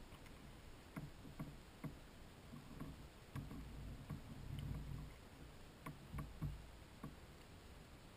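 Faint scattered knocks and clicks from handling on a kayak, with a low rumble around the middle.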